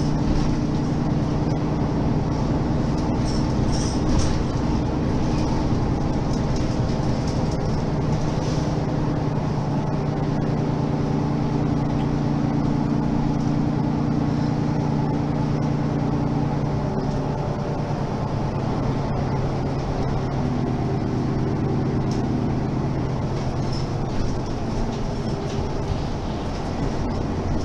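Mercedes-Benz Citaro G articulated bus engine idling steadily while the bus stands at the stop, its note changing about 17 seconds in.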